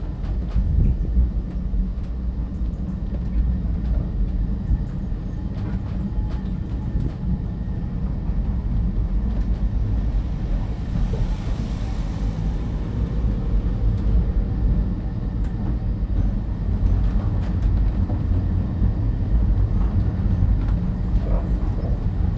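Cable-hauled Great Orme Tramway car running downhill on its rails: a steady low rumble with scattered light clicks and knocks.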